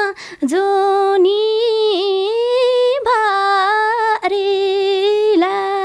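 A woman singing a slow Nepali folk song unaccompanied, holding long, steady notes with short breaks for breath between phrases.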